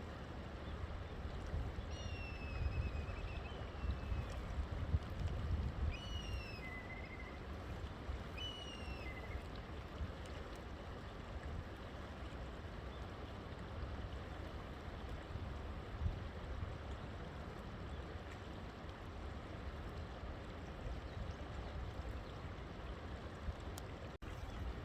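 River water flowing steadily. A bird calls several times in the first ten seconds with short whistles that slide downward.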